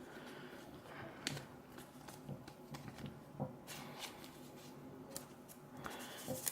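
Faint rustling and scattered light taps of trading cards being handled and slid into a plastic card sleeve.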